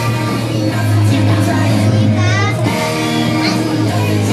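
Music playing with a singing voice over it.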